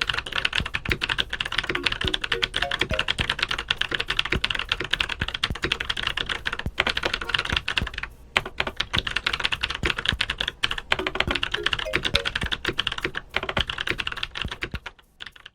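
Fast, continuous typing on an ABKO K640 mechanical keyboard fitted with Akko Cream Blue V3 Pro switches, with a short pause about halfway through.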